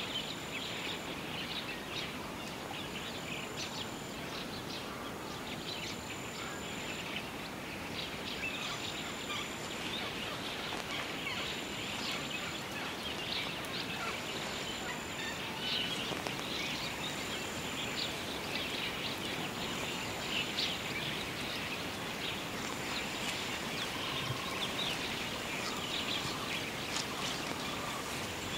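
Outdoor wildlife ambience: a dense chatter of small bird calls, with a high, thin note repeating about every two seconds.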